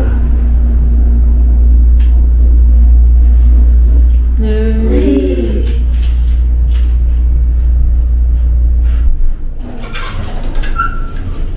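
Elevator car travelling up one floor: a loud, steady low rumble with a steady hum over it, which stops suddenly about nine seconds in as the car arrives.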